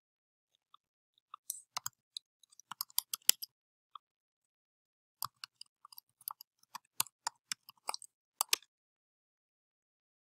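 Typing on a computer keyboard: irregular key clicks in two runs, a short one starting about one and a half seconds in and a longer one starting about five seconds in. The typing stops well before the end.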